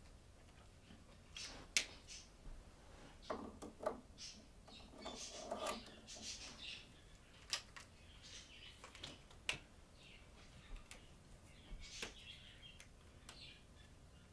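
Faint, irregular clicks and short rustles from a person moving about and handling things.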